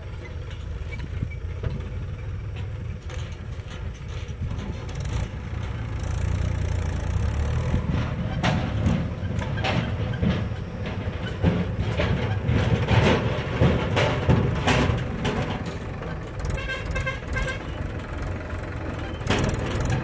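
Diesel tractor engines running under load while pulling loaded trolleys over rough ground. Knocks and clanks grow more frequent after about 8 s, and there is a few quick horn beeps around 17 s.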